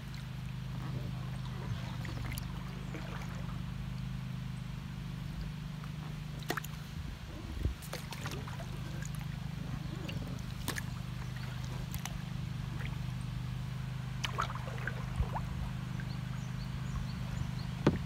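Water trickling and sloshing around a kayak, with scattered small drips and knocks, over a steady low hum.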